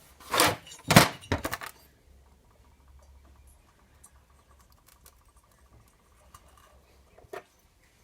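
A quick run of metal clinks and knocks, like tools or small engine parts being handled and set down, then a single click near the end.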